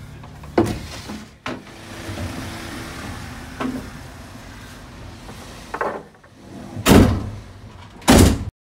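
Strips of plywood knocking and thudding as they are handled and set down in a bare metal van's load area: several sharp knocks, then two much louder bangs near the end.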